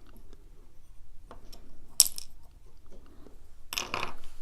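Small metal lock pins and core parts clinking as a padlock core is taken apart by hand: a faint tick, a sharp click about two seconds in, and a longer rattle near the end.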